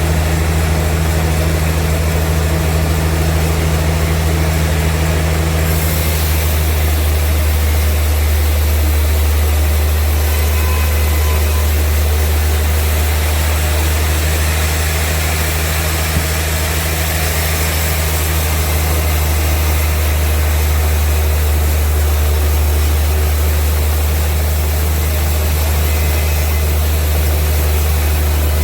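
Sawmill machinery running with a steady, loud low drone, like a heavy engine at constant speed; a brighter hiss joins about six seconds in.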